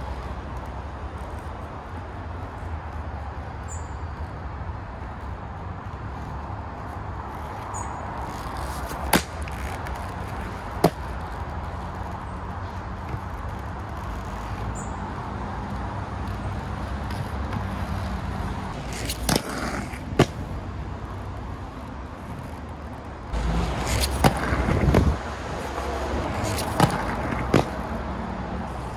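Aggressive inline skate wheels rolling over concrete, with a few sharp clacks of hard skate impacts spread through, and a louder stretch of rolling and scraping about three-quarters of the way in.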